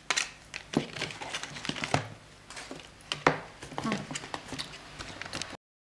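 Rummaging in a cardboard parcel box: rustling packaging and light knocks of cosmetic products being handled, stopping abruptly near the end.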